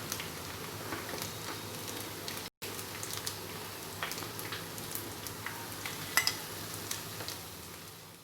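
Breaded egg fingers frying in hot oil: a steady sizzle, with a few sharp clicks, the loudest about six seconds in. The sizzle breaks off briefly about two and a half seconds in and fades near the end.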